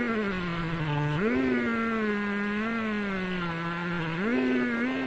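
Two-stroke chainsaw running under load as it rips along a log in a homemade chainsaw mill. The engine's buzz drops in pitch as the chain bites into the wood and rises again, about a second in and near the end.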